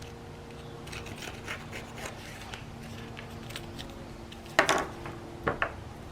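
Paper being handled and its edges roughed up for a distressed look: soft rustling and scraping, with a louder sharp scrape about four and a half seconds in and two shorter ones a second later.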